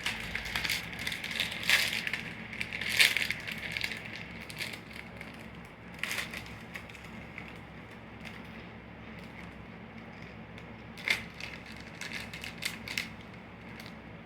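Crunchy food being chewed close to the microphone: irregular crunching and crackling, dense for the first few seconds, then only occasional crunches.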